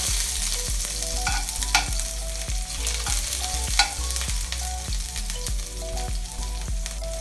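Sliced onions sizzling in hot oil in a stainless-steel honeycomb wok as they are sautéed and stirred with a spatula. A couple of sharp clicks of the spatula on the wok come about two seconds in and again near four seconds.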